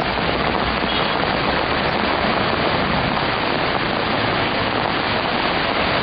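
Steady rush of heavy rain and flood water as cars drive slowly through a flooded street.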